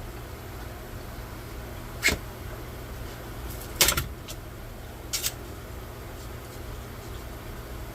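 Sharp clicks and knocks of hard 3D-printed plastic being handled: one about two seconds in, a loud cluster near four seconds, and a quick double just after five. A steady low hum runs underneath.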